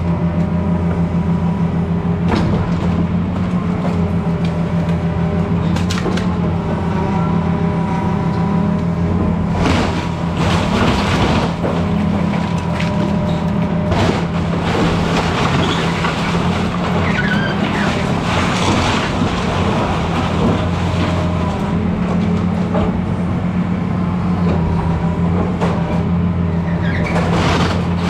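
Excavator diesel engine running steadily under load with hydraulic whine, while wood and debris crack and crash as the house is torn down, with several sharp impacts.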